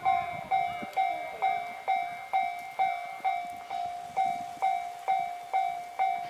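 Japanese level-crossing warning bell ringing in a steady beat of a little over two strikes a second. The low rumble of the passing train fades out about a second in.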